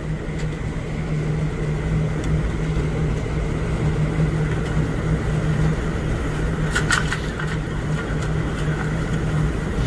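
Steady rumble of wind and rough sea against a container ship's hull, under a constant low hum from the ship's machinery. A few brief sharp clicks about seven seconds in.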